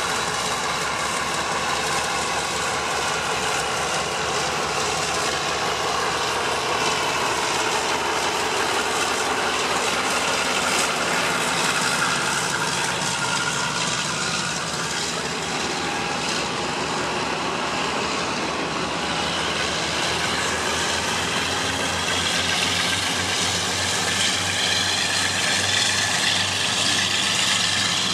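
Class 52 'Western' diesel-hydraulic locomotive's twin Maybach diesel engines working as it hauls a passenger train past and away, the engine note slowly rising and falling.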